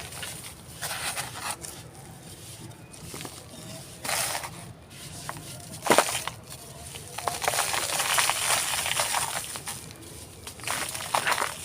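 Dry handmade cement texture being crumbled and crushed by hand, with gritty crunching in irregular bursts. A sharp crack about halfway through and a longer run of dense crunching after it.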